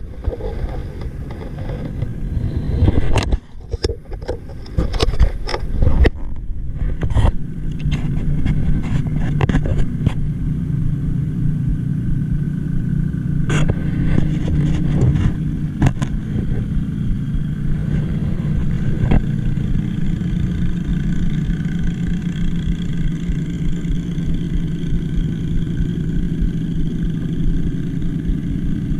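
Irregular knocks and scrapes on a boat hull for the first several seconds, then a steady low motor drone that runs on evenly.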